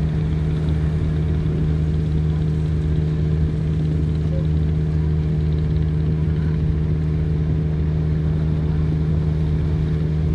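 Steady drone of a fast passenger ferry's engines heard on board while under way, a low hum with a few steady tones that stay even in pitch and loudness.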